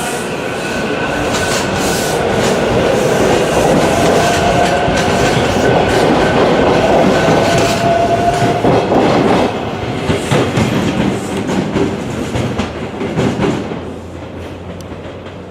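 A two-car electric commuter train, a married pair, running close past the platform. The wheels clatter over rail joints under a faint, slightly rising whine. It grows loudest in the middle, turns to a few separate wheel clicks, and fades near the end.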